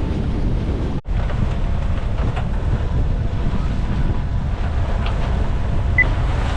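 Strong wind rumbling on the microphone aboard a sailboat in wind of about 20 knots, with a steady wash of waves. The sound drops out sharply for a moment about a second in.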